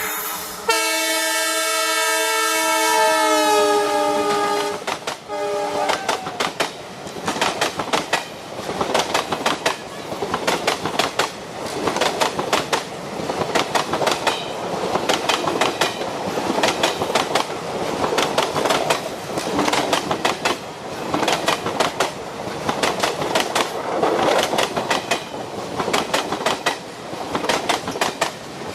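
ALCO WDM3D diesel locomotive's horn, sharp and honking: a long blast with a slight fall in pitch near its end, then a short blast about five seconds in. Then the rhythmic clickety-clack of the train's wheels over the rail joints as the coaches run onto a bridge, continuing steadily.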